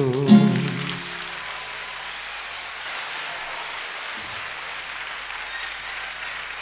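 The song ends with a last sung note over a held keyboard chord that dies away within about a second and a half, and audience applause fills the rest.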